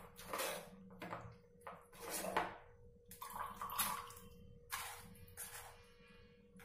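Spoon scraping and pressing wet beetroot pulp in a small steel strainer, with the juice trickling and dripping into a ceramic mug below, in a series of short wet scrapes.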